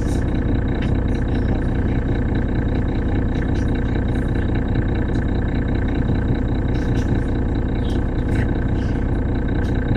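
Mercedes-Benz Citaro city bus heard from inside the cabin, its OM906hLA six-cylinder diesel running with a steady, unchanging drone and a faint steady high whine, with a few light clicks and rattles.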